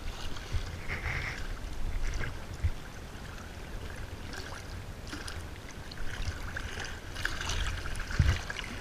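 Wind buffeting the microphone, with shallow water lapping and trickling over a rock ledge. A short low bump comes near the end.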